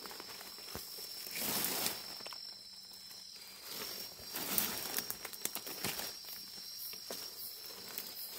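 A steady high-pitched insect trill, with rustling of undergrowth rising about a second and a half in and again from about four to six seconds in, and a few small clicks.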